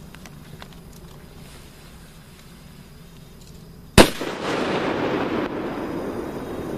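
Color Salut firework banger going off once on the ground about four seconds in: a single sharp bang followed by a long echo rolling back for a couple of seconds.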